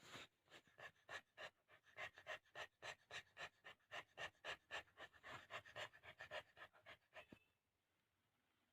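A dog in labour panting fast and hard, about four breaths a second: heavy breathing brought on by contractions. The panting stops near the end.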